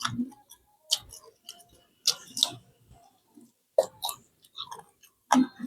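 A person chewing and eating fish-sauce fried chicken wings close to the microphone: irregular wet clicks and smacks of the mouth and short chewing bursts.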